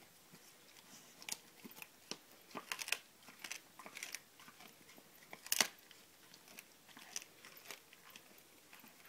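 A pit bull chewing raw venison ribs: irregular crunches of bone and tearing of meat, the loudest crunch about halfway through.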